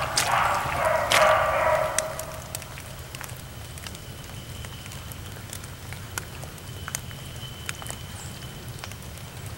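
A beagle baying for about the first two seconds. After that there are only scattered light ticks and crackles over a low steady hum.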